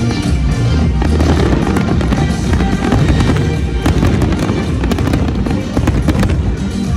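Dense fireworks barrage: aerial shells bursting in quick succession over a steady rumble, with a rapid run of sharp cracks about four seconds in. Music plays underneath.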